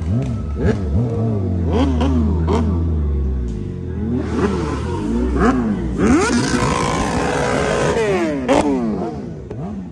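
Motorcycle engines revving over and over in short rising-and-falling blips above a steady idle, loudest about six to eight seconds in.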